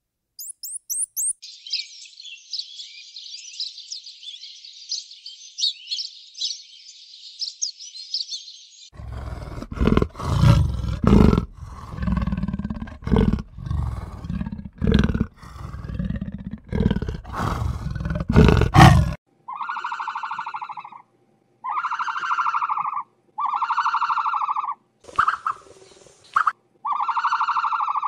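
A sequence of animal sounds. First a dense, high-pitched chirping for about nine seconds, then a big cat's deep growls and roars. Near the end come four long calls, each held on one pitch for about a second.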